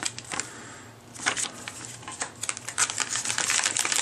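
Crinkling and crackling of a metallic anti-static bag and a paper leaflet being handled, a rapid patter of small clicks that grows busier after about a second.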